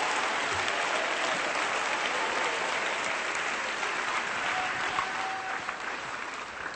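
Church congregation applauding, with scattered shouts of praise; the applause dies down near the end.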